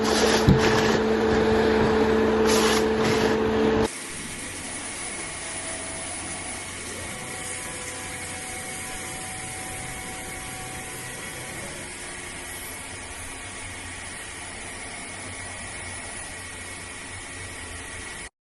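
Machinery running with a loud, steady hum; about four seconds in it cuts abruptly to a quieter, steady mechanical noise, which stops suddenly near the end.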